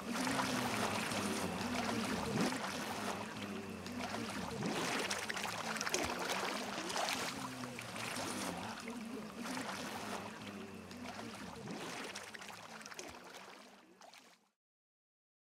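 Water sloshing and splashing, a steady watery wash that fades out near the end.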